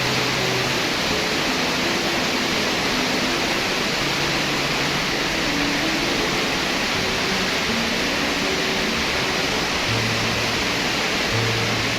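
Steady, loud rushing of a waterfall, an even wash of falling water, with a slow melody of faint background music underneath.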